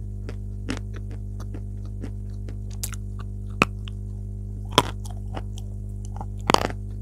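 Chalk crunching between the teeth close to a lapel microphone: irregular sharp crunches, with a few louder ones in the second half. A steady electrical mains hum runs underneath.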